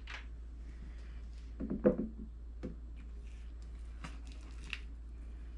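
Soft knocks and light scraping of a utensil against a jar and mixing bowl as marshmallow fluff is scooped out, the loudest knock about two seconds in, over a steady low hum.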